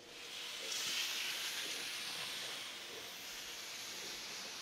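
A steady hiss of rushing noise, like spraying steam or air, that grows louder about a second in and eases off near the end.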